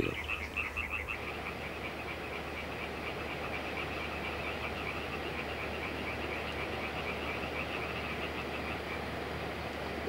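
A night frog chorus: a quick, even run of high croaks over a steady background hiss. The croaks fade out about nine seconds in.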